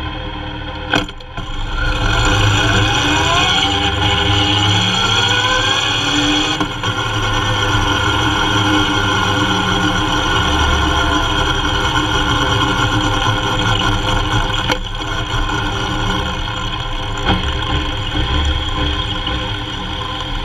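Kawasaki Z750's inline-four engine pulling away and accelerating, its pitch rising as it revs up about two to four seconds in, then running on steadily. A sharp click comes about a second in.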